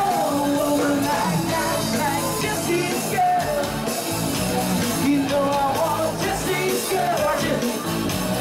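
Live band playing amplified dance music, with a voice singing the melody over a steady beat.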